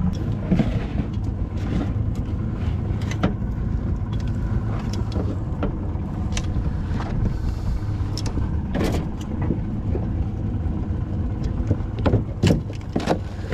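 Boat engine running steadily at low speed, a constant low hum, with scattered sharp clicks and knocks on top.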